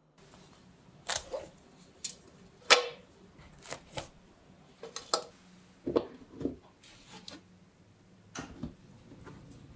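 Baked cookies being handled on a metal baking tray, lifted off and set down: about a dozen light clicks and taps at irregular intervals, the sharpest about three seconds in.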